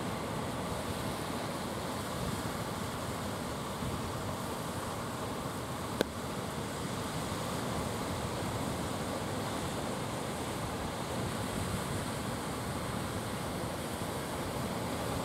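Steady rush of rough surf and wind, with wind buffeting the microphone. A single sharp click about six seconds in.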